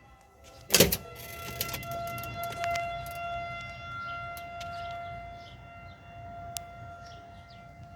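Outdoor tornado warning siren sounding in the distance as a steady, nearly level tone. There is a single loud knock about a second in.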